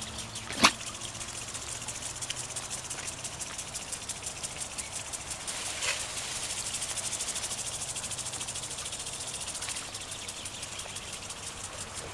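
Insects trilling in a fast, even, high-pitched pulse over a steady low hum, with a sharp click about half a second in.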